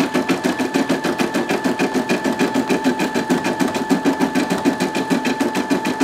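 Brother PE550D embroidery machine stitching a design: the needle goes up and down in a rapid, even rhythm over a steady motor whine.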